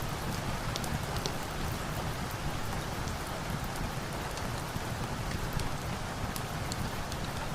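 Steady rain, a dense even hiss over a low rumble, with scattered sharp ticks.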